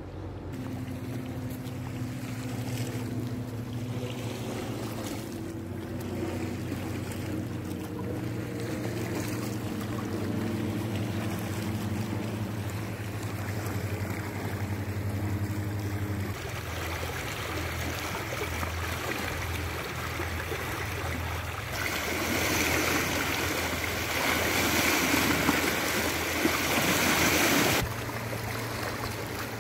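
A small motorboat's engine drones steadily for the first half. Then water washes and splashes over shore rocks, louder for several seconds before stopping abruptly near the end.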